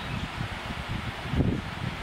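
Handling noise from a handheld camera's microphone: irregular low rumbles and soft thumps, a stronger one about one and a half seconds in, over a steady hiss.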